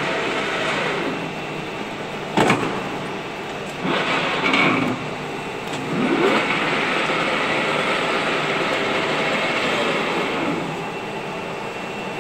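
A 16K20 screw-cutting lathe's headstock gearbox and spindle running, its whine falling and rising in pitch as the spindle slows and speeds up. A sharp clack comes about two and a half seconds in.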